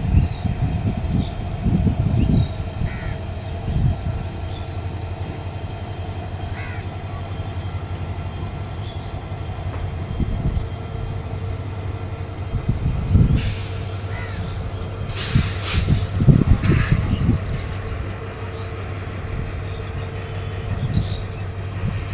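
Freight train rolling past: a steady low rumble of wagons on the track, with a few sharp bursts of high, hissing or screeching wheel noise between about 13 and 17 seconds in.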